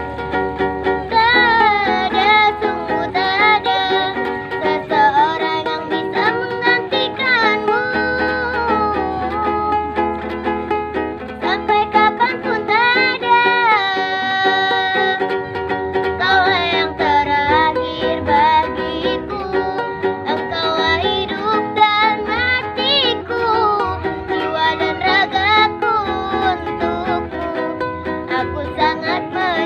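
A young girl singing with held, wavering notes over a strummed ukulele.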